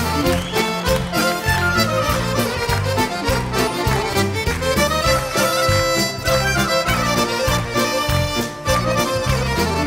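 Live band playing an instrumental introduction, a Cuppini accordion leading the melody over bass and a steady drum beat.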